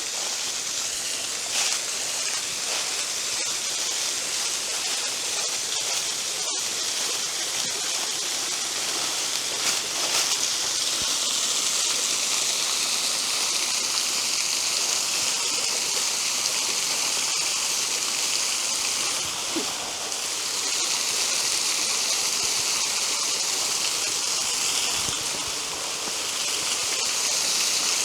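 Water of a low-flowing woodland waterfall and its stream rushing and splashing steadily.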